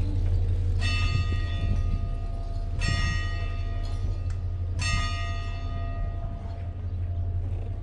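A church bell tolling three times, about two seconds apart, each stroke ringing on and fading, over a steady low rumble.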